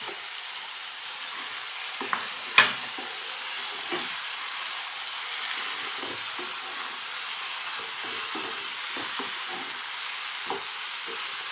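Raw chicken pieces sizzling as they hit hot mustard oil and onion-tomato masala in a frying pan, then stirred, with a steady frying hiss. Scattered knocks and scrapes sound throughout, the sharpest about two and a half seconds in.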